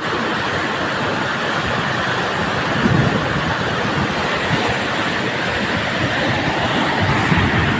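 River rapids rushing in a steady, loud roar of whitewater, with a couple of deeper rumbling swells.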